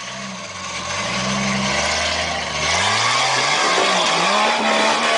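Off-road SUV's engine revving up and down under load as it crawls up a rock ledge. A harsher rushing noise builds from about halfway in.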